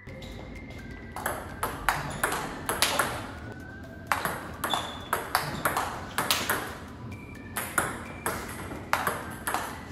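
Table tennis rally drill: a celluloid-type ball clicks off a penhold bat in repeated backhand pushes and bounces on the table, giving a steady run of sharp paired clicks with a brief pause about three and a half seconds in.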